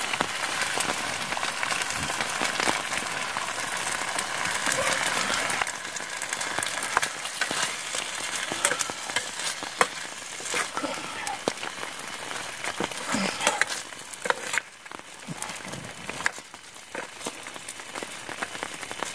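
Paneer in tomato-chilli sauce sizzling in a steel frying pan on a portable butane gas stove, with a metal spoon scraping and clinking against the pan as it is stirred. The sizzling is louder for the first five or six seconds, then quieter.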